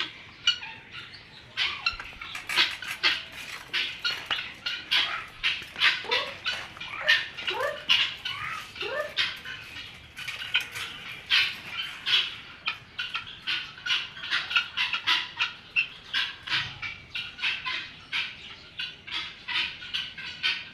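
Many small birds chirping and calling at once in rapid short chirps, with a few lower rising calls partway through.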